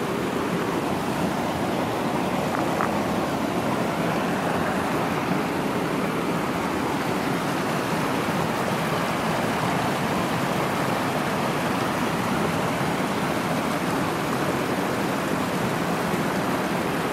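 Shallow rocky stream rushing over and between boulders, a steady, even sound of running water.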